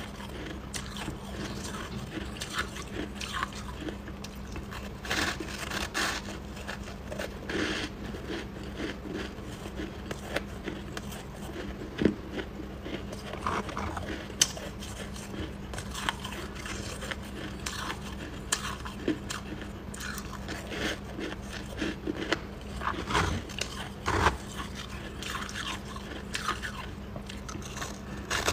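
Crunchy white chunks of frost and shaved ice being bitten and chewed: an irregular run of crisp crunches and crackles close to the mouth.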